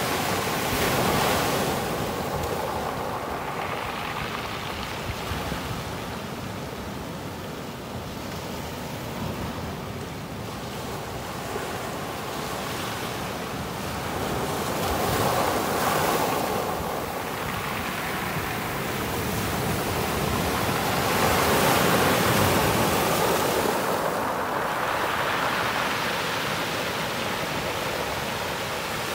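Small sea waves breaking and washing up a sand-and-pebble beach, the surf swelling and easing every few seconds.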